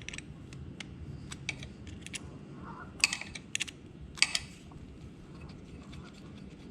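Light, scattered clicks and taps of hand tools and small metal parts while the oil filter caps come off a KTM motorcycle engine. A few sharper clicks come about three seconds and four seconds in.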